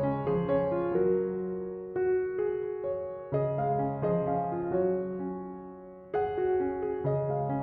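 Background music: a gentle piano melody, notes struck and left to fade, with new phrases starting about three and six seconds in.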